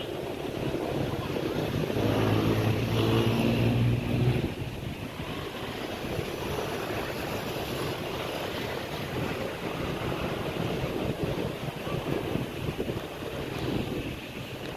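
Strong wind buffeting the microphone in a steady rushing roar. From about two seconds in, a low pitched engine hum rises over it for about two seconds, then fades.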